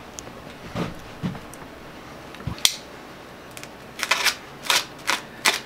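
A few light knocks and one sharp click, then from about four seconds in a quick series of short crinkling rips as foam and plastic packing wrap is pulled off an electric scooter's handlebar.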